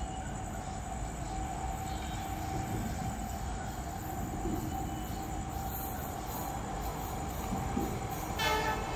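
Electric express train approaching on the track, with a steady rumble and a steady tone over it. The locomotive's horn starts to blow near the end.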